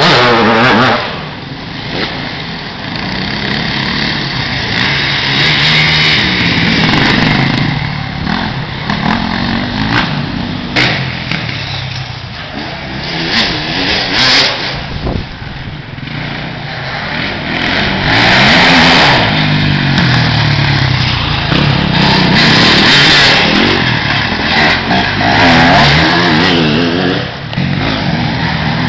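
Off-road racing motorcycles revving hard as they pass on a dirt race track, engine pitch climbing and dropping again and again as the riders shift gears and open and close the throttle, one bike after another.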